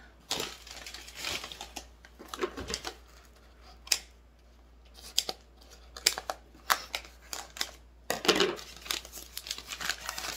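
Scissors snipping through a taped brown kraft-paper wrapping, with the paper crinkling and tearing as it is handled. The snips and crackles come irregularly and are busiest near the end.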